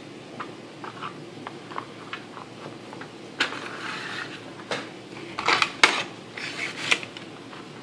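A US Mint coin presentation box being handled and closed: light taps and ticks of the coin capsule and plastic tray, then the cardboard box scraping as it slides into its sleeve, with a few sharp knocks.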